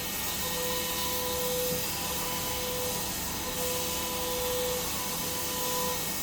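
CNC machine cutting an aluminium part: a steady hiss with a pitched whine that comes and goes every second or so.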